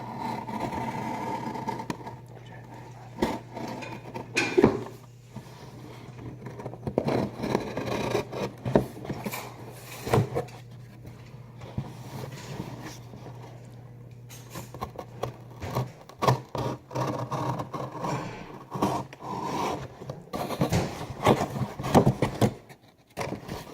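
Box cutter scraping and cutting through cardboard, with irregular scrapes and scattered knocks as the box is handled. A steady low hum sits underneath and stops about two-thirds of the way through.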